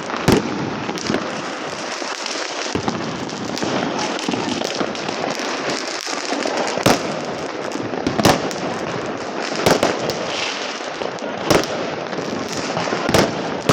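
Fireworks going off: a continuous crackle with sharp loud bangs every second or two.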